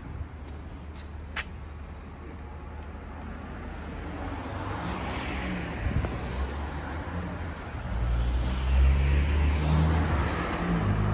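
Road traffic on a city street, with vehicles passing close by. A motor vehicle's engine rumble grows from about four seconds in and is loudest near the end.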